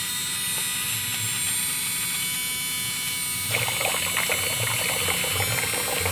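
Water pouring from a miniature water pump, running steadily and turning heavier and splashier about three and a half seconds in.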